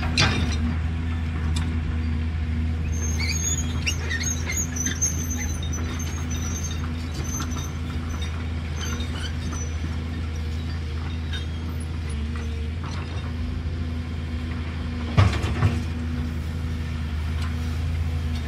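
JCB tracked hydraulic excavator's diesel engine running steadily as the machine works, with brief high squeaks a few seconds in and a couple of sharp metal knocks about fifteen seconds in.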